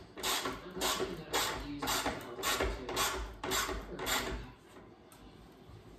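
Ratchet wrench being worked to tighten a bolt on a metal TV wall-mount bracket: a run of rasping ratchet strokes, about two a second, that stops about four and a half seconds in.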